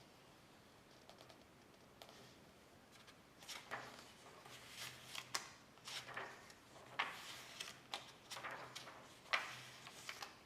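Scattered light clicks and short rustles of small objects being handled, coming irregularly from about three seconds in.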